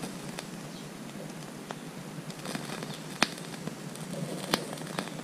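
Lit match and scrap of paper burning in a methylated-spirits burner tray: faint scattered crackles with a few sharp clicks, the loudest about three seconds in and another about four and a half seconds in.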